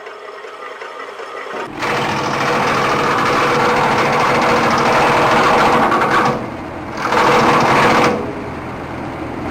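Small high-revving engine of a homemade wood chipper running under load, coming in loudly about two seconds in. It drops off briefly past the middle, comes back hard for about a second, then runs on more quietly.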